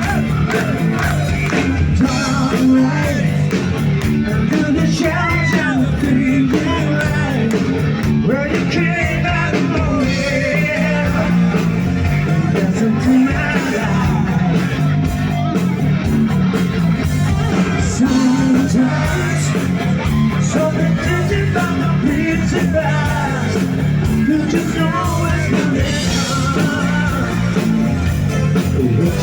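A live rock band playing an instrumental stretch of the song, with a steady bass line under guitar and a gliding melodic lead.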